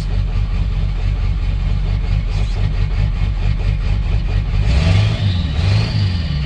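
A 7.3 truck engine idling with a miss, which the owner takes for a bad injector not spraying right at idle. About five seconds in, the rumble swells and a high whine rises and holds.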